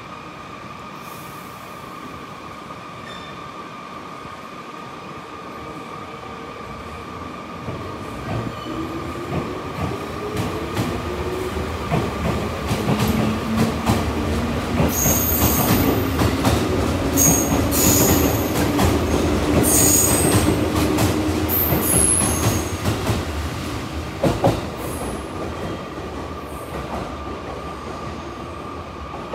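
A JR Central 211-series electric multiple unit of six cars pulls away, its traction motors whining and slowly rising in pitch as it gathers speed. It grows louder as the cars pass, with wheel squeal, clicking over rail joints and one sharp knock, then fades away.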